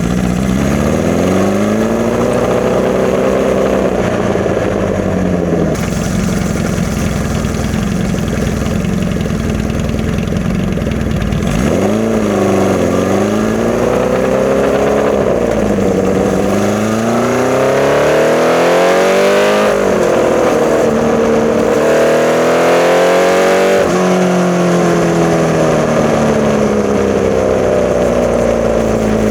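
1981 Honda CB650 air-cooled inline-four running through a Hindle 4-into-2-into-1 full exhaust on Mikuni VM34 carbs, revving up and down. The engine pitch climbs and drops several times in a row through the middle stretch, then falls away near the end.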